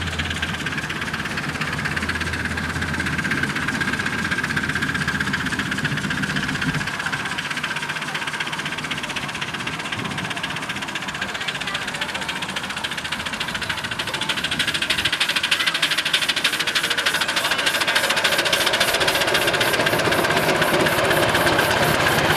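Miniature railway locomotive hauling a passenger train, running steadily with a rapid, even beat. The train gets louder as it comes closer, from about two-thirds of the way in.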